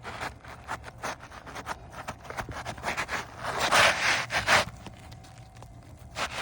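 Asphalt roof shingle being slid into place under the course above, with repeated scraping and rustling of shingle on shingle. The scrapes are loudest about four seconds in.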